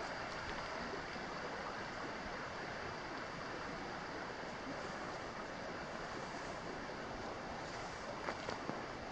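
Steady outdoor rushing noise, even and unbroken, with a faint constant high-pitched whine running through it and a few small clicks near the end.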